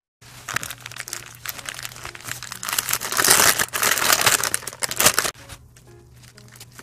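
Paper food wrapper crinkling and rustling as a rice burger is unwrapped by hand, loudest in the middle and stopping about five seconds in.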